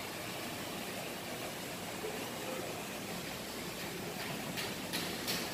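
Steady, even background hiss. A few short, crisp clicks come near the end.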